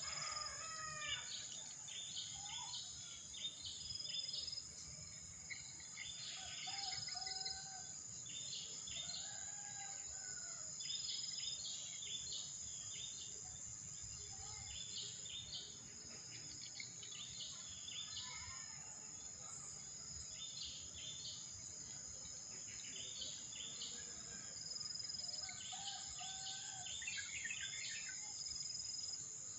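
Outdoor nature ambience: a steady high-pitched insect drone with many short repeated chirps over it, and scattered soft bird calls now and then.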